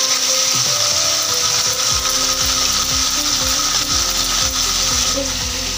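A metal spoon stirring and scraping through thick spiced yogurt in a glass bowl, over a steady hiss and soft background music.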